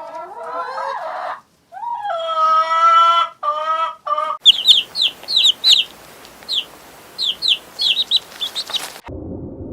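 A few drawn-out, pitched farm-animal calls, then, after a cut, chicks peeping in quick, high chirps that slide downward, over a steady hiss.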